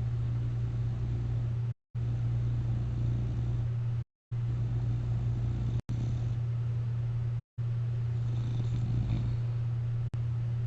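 A person sleeping on their back in a CPAP mask, snoring with a low, purring rumble over a steady low hum. The sound cuts out to dead silence for a moment about every two to three seconds.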